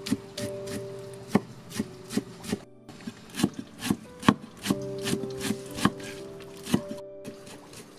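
Large kitchen knife chopping a pile of fresh green leaves on a wooden cutting board: quick, uneven strokes, about three a second, each a sharp knock of the blade on the wood.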